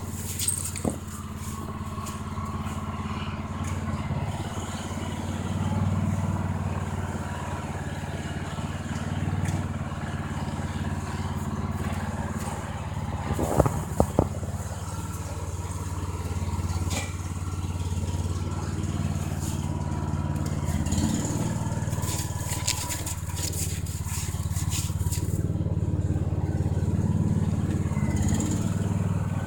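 Snowblower engine running steadily, with a few sharp clicks or knocks about halfway through.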